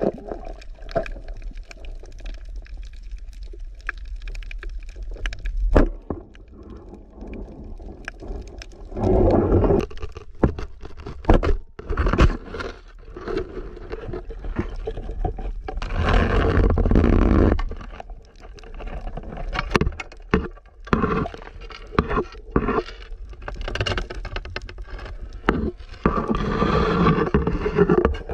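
Muffled underwater noise picked up by a camera in its waterproof housing: water rushing and gurgling past it in several longer swells, with many sharp clicks and knocks throughout.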